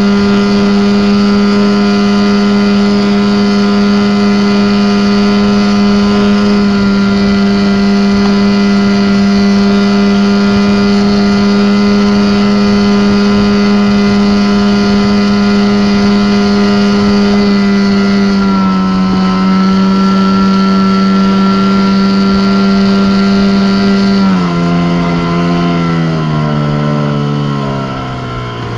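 Johnson 15 hp outboard motor running steadily at high speed, driving an inflatable boat. Near the end the engine note falls in steps to about half its pitch as it slows.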